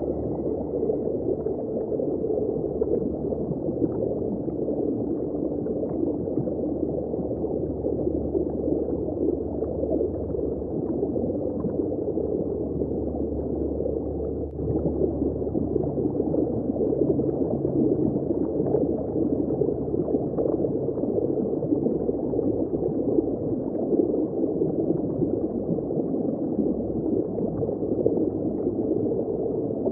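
Underwater ambience: a steady, muffled low rush of moving water, heard from beneath the surface.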